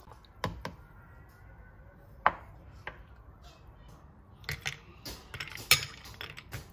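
Kitchen work: scattered sharp knocks and taps of utensils and dishes, a few single ones in the first three seconds, then a quicker, irregular run of clacks from about four and a half seconds in.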